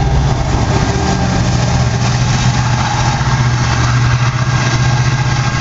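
BNSF grain train running past, a loud steady low rumble with a faint steady high whine over it.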